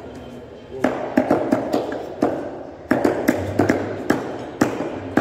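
Butcher's cleaver chopping chicken on a wooden block: a quick, irregular run of sharp chops, about a dozen, starting about a second in.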